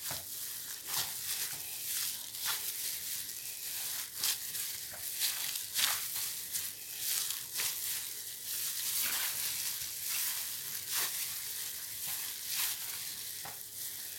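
Plastic-gloved hands squeezing and working a crumbly dough of sweet tapioca starch and wheat flour in a glass bowl: an irregular crunching, crinkling rustle. The dough is still dry and has not yet come together.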